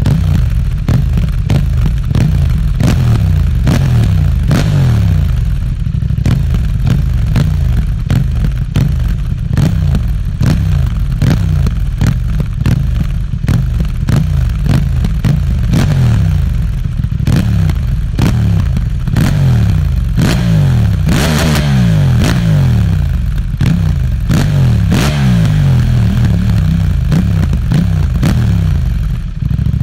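KTM 790 Duke's parallel-twin engine through an Akrapovič exhaust, revved again and again, its pitch climbing and dropping in quick succession.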